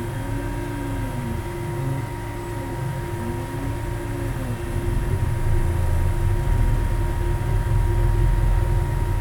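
UP Box 3D printer running in turbo mode, its stepper motors whining in tones that rise and fall as the axes speed up and slow down, over a steady low hum. The printer's Y axis is losing steps (stepping out).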